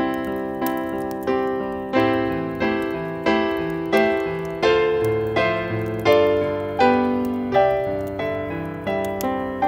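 Solo piano music: a slow melody of single struck notes about every two-thirds of a second over held chords, each note fading after it is struck.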